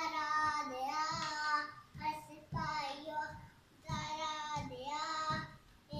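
A young boy singing in three held phrases with short breaks between them.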